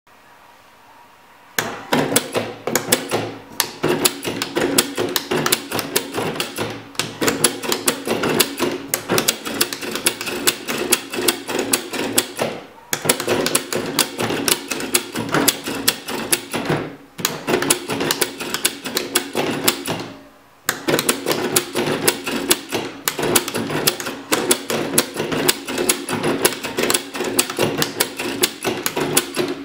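Arduino-driven useless machine built from old printer parts: toggle switches clicking as they are flipped, and the printer-carriage mechanism whirring and clattering as it flips them back off. Rapid clicking with a steady hum underneath begins about a second and a half in, with a few brief pauses.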